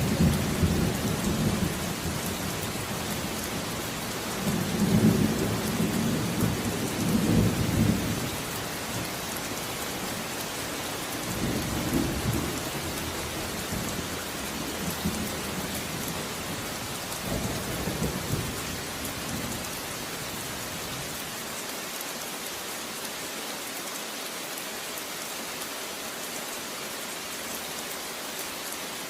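Steady rain hissing, with low rolls of thunder rumbling several times, loudest about five to eight seconds in. The thunder dies away after about twenty seconds, leaving only the rain.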